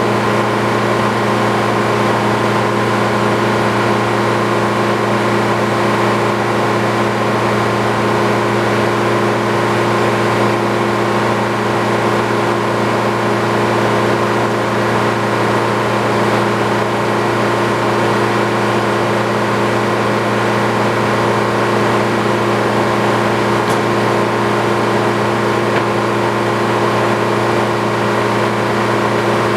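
A machine's motor running steadily, a constant hum with several steady tones and no change in speed or load.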